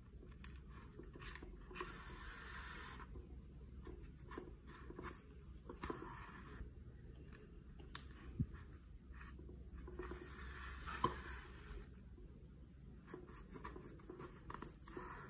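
Faint scratching and rustling of hand-sewing: a needle and thread drawn through a lace wig cap and hair, with a few small clicks.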